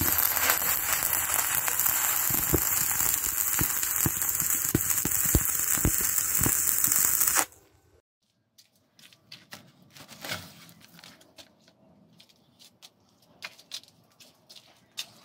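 Electric arc welding: the arc crackles and hisses steadily with occasional sharp pops for about seven seconds, then cuts off suddenly. After that, only faint clicks and knocks of hands handling an old electric fan's metal guard.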